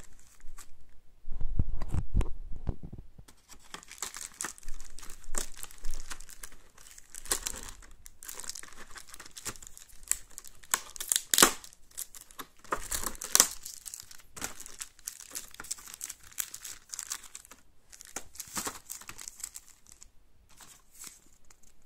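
Clear plastic packaging and paper leaflets crinkling and rustling as they are handled and pulled out of the tray, in irregular bursts, with a dull low bump about two seconds in.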